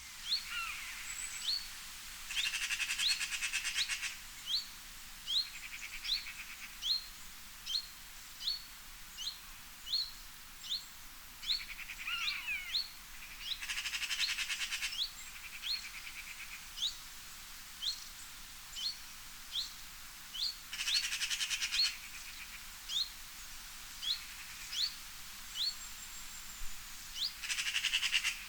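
Birds singing: one bird repeats a short, sharp chirp about every three-quarters of a second, while another breaks in every seven or eight seconds with a louder rapid trill lasting a second or two.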